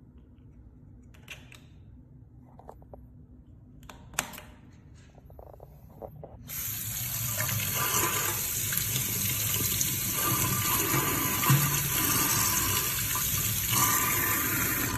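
A few faint clicks, then about six seconds in a kitchen tap comes on and runs steadily, its stream splashing over a cased smartwatch into a stainless steel sink.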